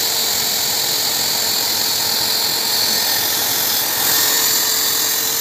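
Steady whirring of an electric fan-driven appliance running continuously, a loud even rush of air with a faint held whine in it.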